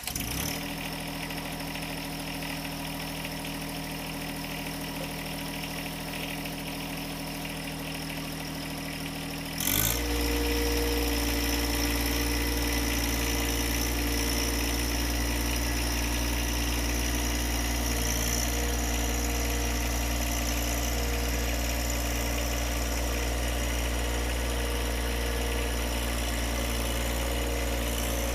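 Tractor engine running steadily at low speed, then throttled up about ten seconds in and running louder and deeper at a steady higher speed.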